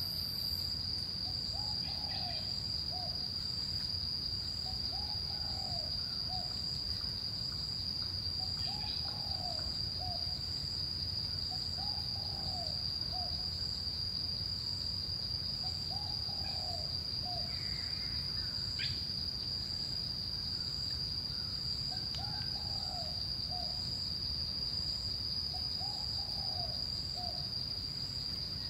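Forest ambience: a steady, high-pitched insect drone, with a bird repeating a short two-note call every three to four seconds and one quick rising chirp past the middle. A low steady rumble lies underneath.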